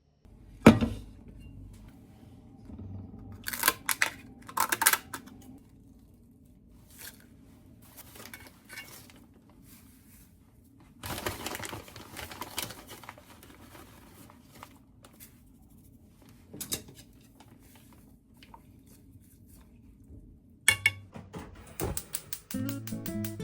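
Kitchen handling sounds: scattered knocks and clinks of dishes and utensils, with about two seconds of rustling, tearing noise about eleven seconds in. Guitar music starts just before the end.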